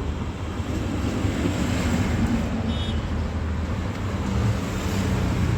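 Steady, low motor-vehicle rumble, without clear breaks or single events.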